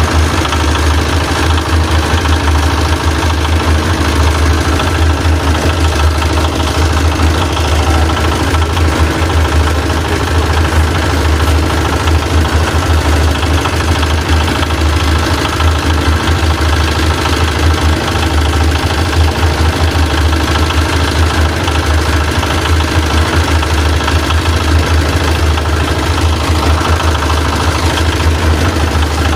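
An engine running steadily at one speed, with a low drone.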